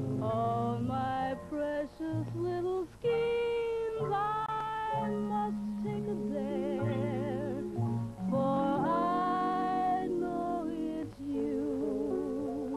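A woman singing a jazz ballad vocal with a big band accompanying. She holds long notes with a wide vibrato and slides into several of them, over a low bass line.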